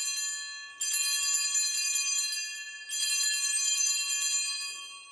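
Altar bells, a cluster of small hand bells, shaken in three rings to mark the elevation of the consecrated host: the first is already sounding, the others start sharply about a second and about three seconds in, and each fades away, the last dying out near the end.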